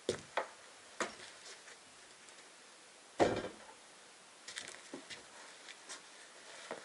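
Wooden knocks and steps on the plank floor of a small timber hut, with one loud wooden thump about three seconds in, then lighter scraping and rustling of gear being handled.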